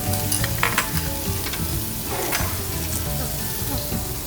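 Meat sizzling on a tabletop Korean barbecue grill, a steady frying hiss with a few light clicks under a second in.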